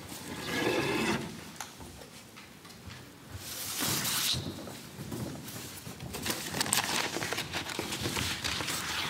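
Wooden kamishibai stage doors being closed just under a second in, then a large paper picture card sliding out of the frame with a swish about four seconds in, followed by paper rustling and light knocks on wood as cards are handled.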